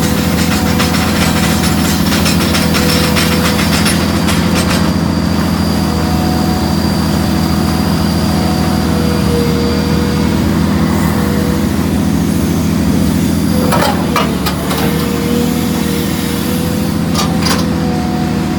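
Powerscreen jaw crusher and excavator running steadily with a deep diesel drone and a steady whine over it, while loaded chalk rattles through the crusher for the first few seconds. Sharp knocks come about fourteen seconds in and again near seventeen seconds.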